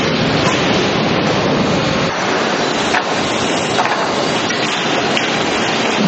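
Loud, steady din of sawmill lumber-handling machinery, with a few knocks of hardwood boards striking one another and the steel conveyor.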